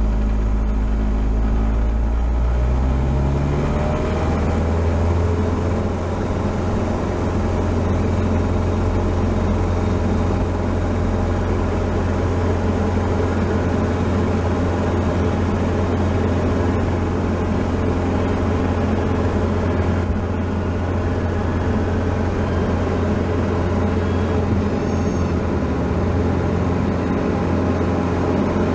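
Diamond DA-40's single piston engine and propeller heard from inside the cockpit, throttled up to takeoff power about two to four seconds in, the pitch rising, then running steadily at full power through the takeoff roll.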